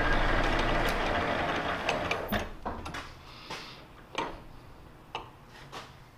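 Metal lathe spindle running down after a cut on a weld-built shaft, its machine noise fading out over the first few seconds as the chuck coasts to a stop. This is followed by several separate sharp metallic clicks and knocks.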